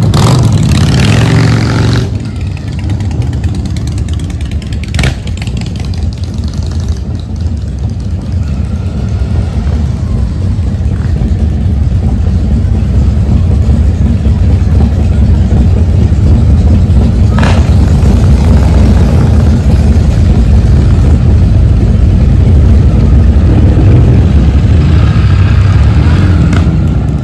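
Motorcycle engines running at low revs, a deep steady sound that grows louder over about twenty seconds and eases off near the end.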